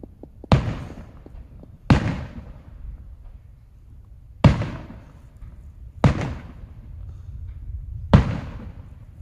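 Aerial fireworks bursting: five sharp booms at uneven intervals, each trailing off in an echoing rumble.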